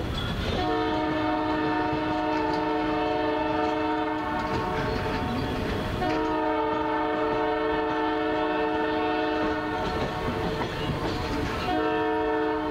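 Diesel locomotive's multi-chime air horn sounding a steady chord in two long blasts of nearly four seconds each, with a third starting near the end. Under it is the low rumble and clatter of passenger cars rolling by on the rails.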